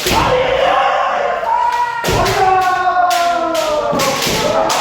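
Kendo kiai: long, drawn-out shouts, one starting at the opening and another about two seconds in, punctuated by several sharp strikes of bamboo shinai and stamping footwork.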